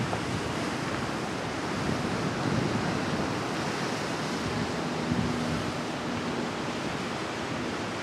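Ocean surf washing over a rocky shore, a steady rushing noise, with wind buffeting the microphone.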